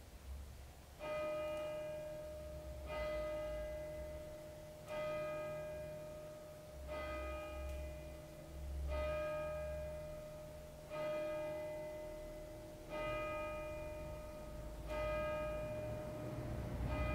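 A single bell tolling slowly. It is struck about every two seconds, and each stroke rings on into the next.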